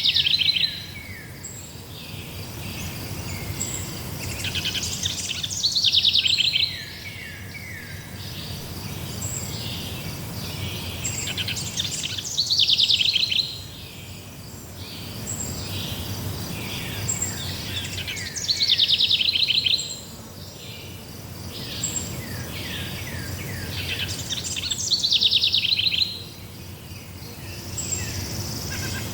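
Forest birds singing. A loud trilling phrase comes back about every six seconds over softer chirps, with faint, regular insect chirping high above.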